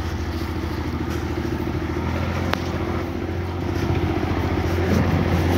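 IMT 539 tractor's three-cylinder diesel engine running steadily under load as it hauls a trailer of logs, growing louder toward the end. A single sharp click about two and a half seconds in.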